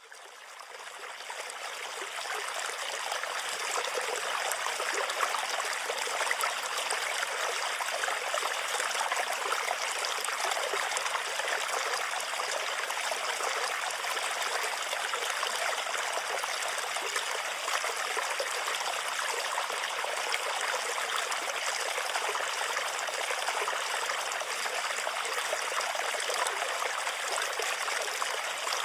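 Running water, a steady rush of flowing water that fades in over the first few seconds and then holds even.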